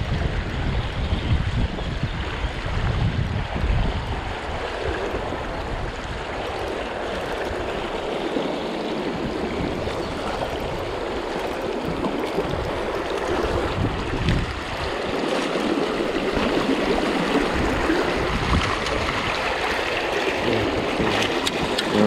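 Fast river water rushing and splashing around a wading angler's legs, with wind rumbling on the microphone for the first few seconds. Near the end come a few sharper splashes as the hooked trout thrashes at the surface close by.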